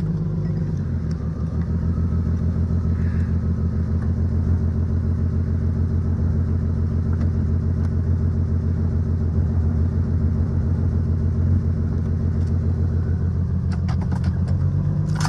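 1990s Lexus GS300's inline-six engine running at low speed as the car is pulled forward. Its note deepens and gets louder about a second in, with an even pulsing. The owner suspects a misfire that needs a new coil pack.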